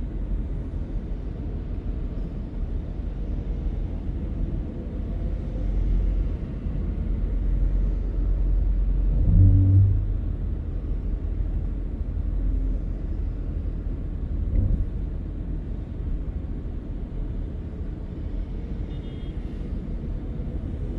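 Steady low rumble of a convoy of work trucks on the road, swelling briefly louder about halfway through.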